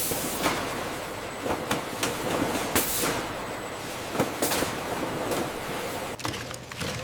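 Processing-line machinery running with a steady din and irregular clattering knocks.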